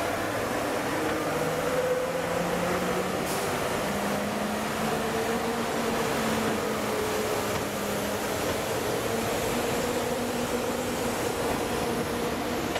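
TGV high-speed train rolling slowly past: a steady rumble with several humming tones from its power car, which rise slightly in pitch about two to four seconds in.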